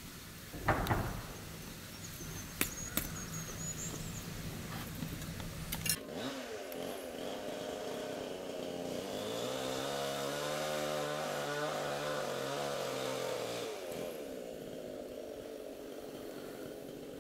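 An engine runs for about eight seconds, its pitch rising, holding and then falling away. Before it there is a thump about a second in and a few sharp clicks.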